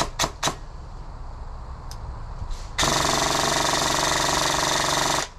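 Electric airsoft gun firing two single shots at the start, then a long full-auto burst of rapid, evenly spaced shots from about halfway in, lasting over two seconds and stopping abruptly.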